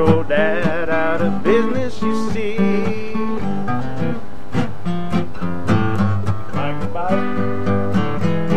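An acoustic-guitar-led country-style song: strummed guitar over a steady bass part, with a melody line that bends in pitch near the start and again near the end.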